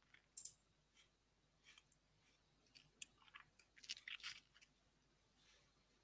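Faint, scattered small clicks and crackles: a couple near the start, a few more around two to three seconds in, and a denser crackly patch around four seconds in.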